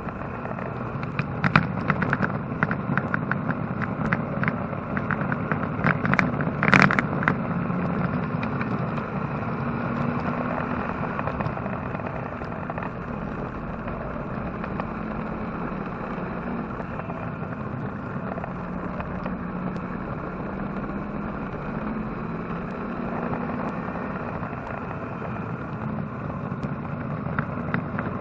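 The Chevy engine of a Porsche 944 race car running on track, heard from inside the car. Its drone wavers up and down in pitch, with scattered rattles and one sharp knock about seven seconds in.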